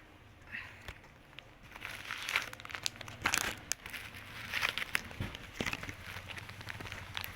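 Parcel packaging being handled and opened: irregular crinkling, rustling and crackling with sharp clicks, starting about two seconds in.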